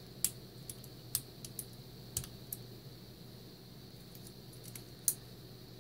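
Irregular small, sharp metal clicks and taps from a Mul-T-Lock Interactive lock cylinder being handled, its core loose in the housing with the pins removed. A quick cluster of clicks comes in the first couple of seconds, then one loud click near the end.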